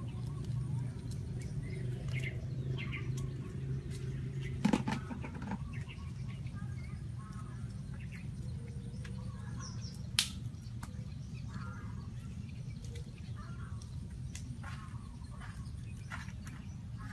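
Outdoor ambience: scattered short chirps over a steady low hum, with two sharp clicks about five and ten seconds in.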